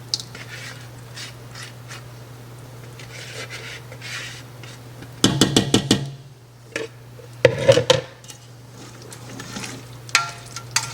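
A spoon stirring and scraping in a cooking pot of thick bean sauce, with two short bursts of sharp clattering knocks of the spoon against the pot, about five and seven and a half seconds in. A steady low hum runs underneath.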